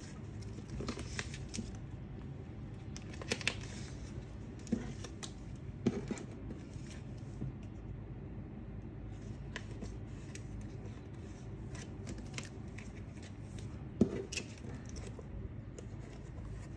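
Clear plastic photocard toploaders and binder pocket sleeves being handled: soft plastic rustling and sliding, with scattered light clicks and taps, the sharpest near the end. A low steady hum runs underneath.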